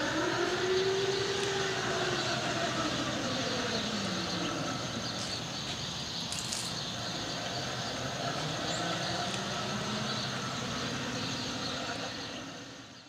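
Electric-conversion Ford F-150 driving by: a whine from its UQM 135 kW permanent-magnet motor and single-speed planetary gearbox that rises and falls in pitch with speed, over steady tyre noise. It fades out at the end.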